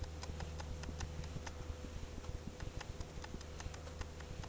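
A steady low electric hum with a faint steady whine above it, under irregular light clicks, several a second.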